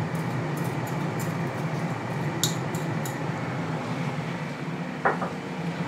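Ninja dual-basket air fryer's fan running steadily as it bakes, with a light tap of a knife on a china teacup about two and a half seconds in.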